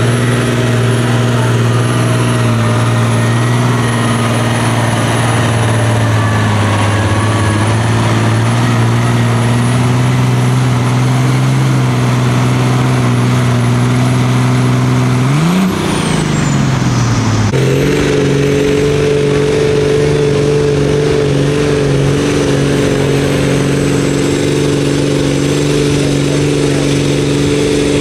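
Pulling tractor's diesel engine held at high revs under full load as it drags a weight-transfer sled. About sixteen seconds in, the revs briefly rise and then drop away sharply as the pull ends. Then another tractor's diesel engine runs at a steady speed.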